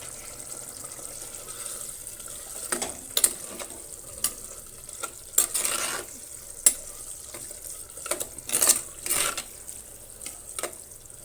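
A spoon scraping and knocking against a cooking pot as gongura leaves, onions and tamarind are stirred, in a series of short strokes, over a steady sizzle from the pot on the stove.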